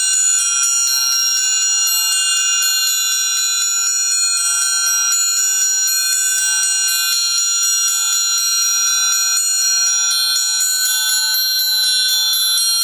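Amplified orchestral triangle struck in a fast, unbroken roll, a dense cluster of high ringing overtones sounding steadily while their balance shifts slightly.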